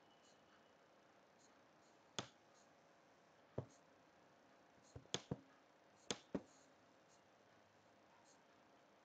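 Computer mouse button clicking: sharp single clicks about two and three and a half seconds in, a quick run of three around five seconds, and two close together around six seconds, over faint steady hiss.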